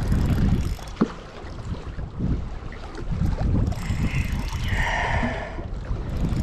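Wind rumbling on the microphone, with handling noise from a fishing reel being worked during a fish fight. A sharp click comes about a second in, and a brief hissing buzz comes near the end.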